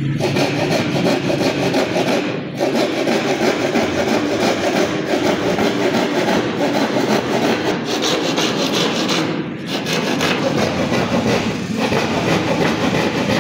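Narrow-bladed hand saw cutting a curve through a wooden board by hand, in quick continuous strokes, with a few brief pauses.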